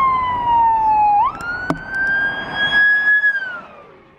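Fire truck siren wailing, its pitch sliding down, jumping back up and holding, then dropping away and fading out as the truck goes by. A single sharp click comes about halfway through.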